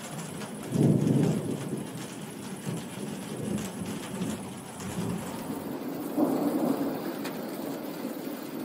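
Thunder rumbling over steady heavy rain. A loud rolling peal comes about a second in, and a second swell of rumble around six seconds.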